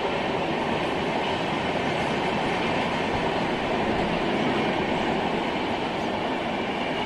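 Passenger train passing, its coaches rolling along the track with a steady rumble and rattle.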